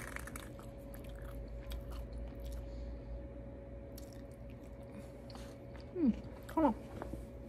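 A person chewing and eating food from a plastic lunch tray with a wooden spoon, with faint scattered clicks of the spoon, over a steady background hum. About six seconds in come two short voice sounds, each falling in pitch.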